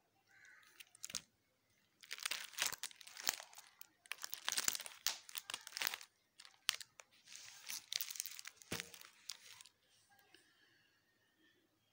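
Plastic photo-album sleeves crinkling as the pages are handled and turned, in three rustling spells with a few sharp clicks between them.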